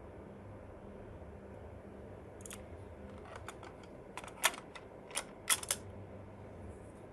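Sharp plastic clicks and clacks of a cassette tape being handled and loaded into a cassette deck's tape compartment, a scatter of them over about three seconds with the loudest a little past the middle. A faint steady hum sits underneath.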